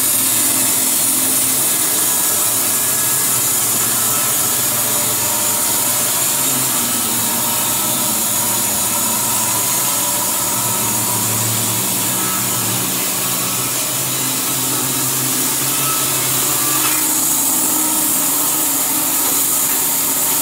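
Band sawmill with an electric motor cutting along a log, running steadily in the wood while it blows sawdust out of its discharge chute.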